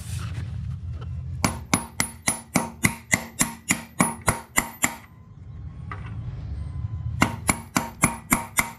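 Hand ratchet with a 1-1/16-inch socket clicking at about four sharp metallic clicks a second. There is a longer run from about a second and a half in, and a shorter run near the end.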